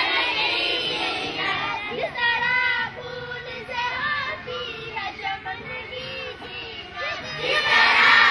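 A group of young schoolgirls singing together in unison. From about two seconds in it drops quieter, with one voice standing out for several seconds, and the whole group comes back in loudly near the end.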